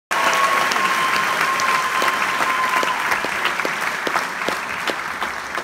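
Theatre audience applauding, with individual claps standing out, slowly dying down. A single steady high tone is held above the clapping for about the first three seconds.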